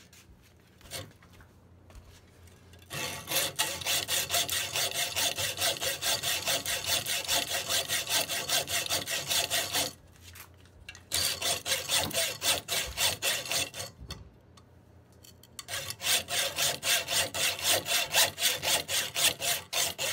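Hand hacksaw cutting the hardened steel of an old axe head held in a vise: quick, even back-and-forth strokes in three long runs, the first starting about three seconds in, with two short pauses. The steel is hard and has not been annealed, so the blade cuts slowly.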